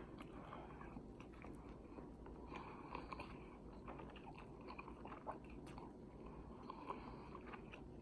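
A person chewing a mouthful of food close to the microphone, quietly, with small wet clicks of the mouth scattered throughout.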